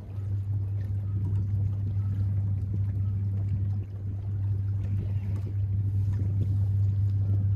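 Boat engine running steadily: a low, even drone that holds unchanged throughout.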